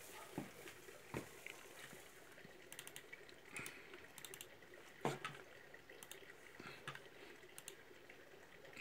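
Faint room tone with scattered small clicks and taps; a slightly sharper tap comes about five seconds in.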